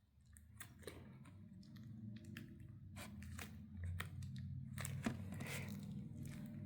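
Fingers digging and squeezing through slime to pull out a hidden toy: a low rubbing rumble with scattered sticky clicks and crackles, starting about half a second in and getting louder.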